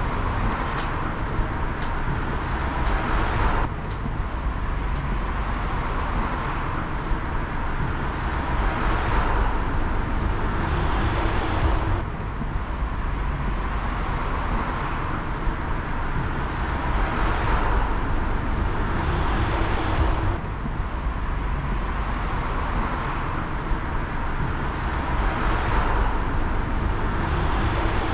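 Road traffic: cars and a box truck passing one after another, each pass a swell of tyre and engine noise that rises and fades every several seconds, over a steady low rumble.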